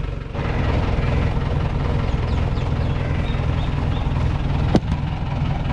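Old Mahindra jeep's engine idling with a steady low pulsing rumble, and one sharp knock about three-quarters of the way through.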